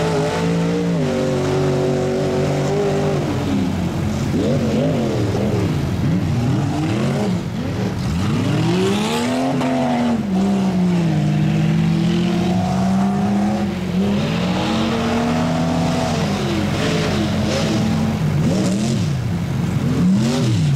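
Tuff truck engines revving hard and easing off again and again as the trucks work through a dirt obstacle course. The pitch climbs and drops with each burst of throttle, and at times two engines are heard at once.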